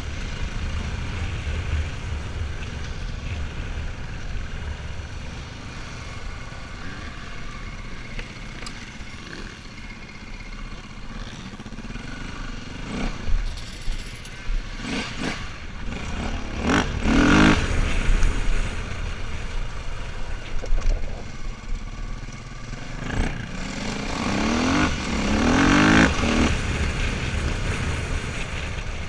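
Enduro dirt-bike engine running under the rider over a dirt track, quieter at first, then revving up hard in several bursts around the middle and again near the end.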